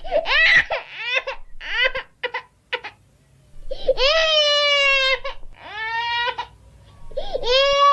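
Infant crying: short, broken cries for the first couple of seconds, a brief pause, then three long wailing cries, each held for about a second.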